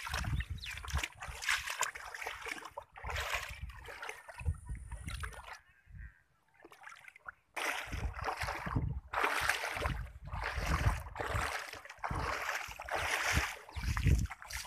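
Muddy floodwater sloshing and splashing in irregular bursts, with a brief lull about six seconds in.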